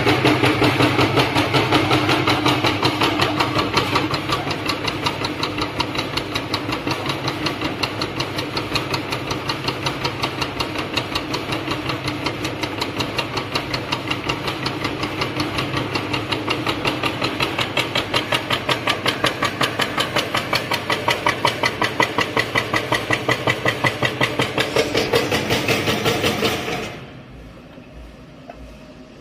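Stainless-steel preserved-fruit dicing machine running: a steady motor hum under a fast, even chopping beat from its cutting blades as it dices sticky candied fruit into cubes. It stops abruptly near the end.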